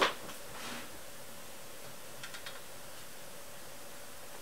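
Hands working a bolt on the mounting of an Emco Unimat SL jigsaw attachment: one sharp metal click at the start, then faint handling and a few light ticks about two seconds in. The bolt is too short to catch its thread.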